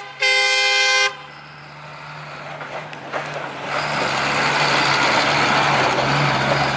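A vehicle horn gives a loud blast that ends about a second in, the second of two honks. A vehicle engine then runs with a steady low hum, and its noise grows louder about four seconds in.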